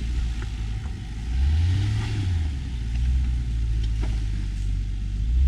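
Off-road vehicle's engine pulling at low speed, revving up and easing off a second and a half in and again near the end.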